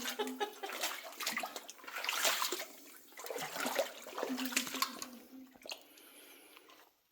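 Water splashing and sloshing in a cave pool, in uneven surges, cutting off suddenly near the end.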